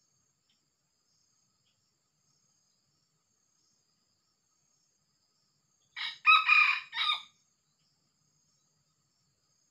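Red junglefowl rooster crowing once, about six seconds in: a short crow of three or four linked notes that cuts off abruptly. Faint insects chirr steadily behind it.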